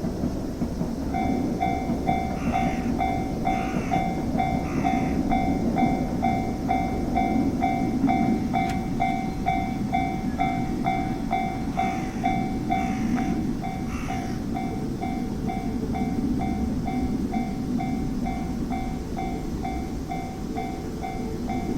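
Japanese level-crossing warning bell ringing in a steady clang about twice a second, starting about a second in, over a steady low rumble.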